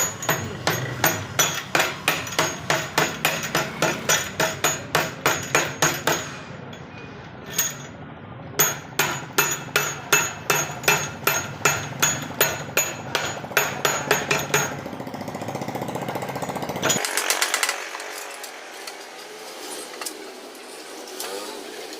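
Hammer striking metal over and over, about three blows a second, in two runs broken by a pause of about two seconds. After that the blows stop and only a steady hiss remains.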